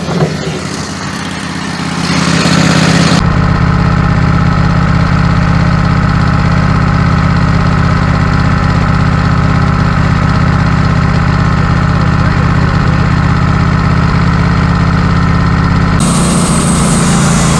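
Wood-Mizer LT15 Go portable sawmill engine running steadily. Its note builds about two seconds in and holds, and near the end the sound changes as a hissing noise joins it.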